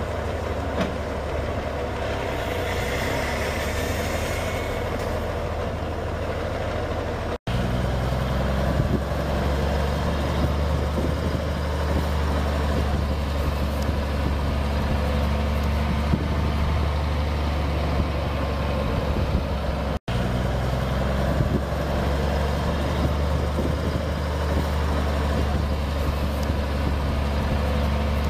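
Cummins 855 six-cylinder turbo diesel of a 1979 Chevrolet Titan N90 cab-over truck running as the truck drives slowly, a steady low engine drone. The sound cuts out briefly twice, a third of the way in and about two-thirds in, and is a little louder after the first cut.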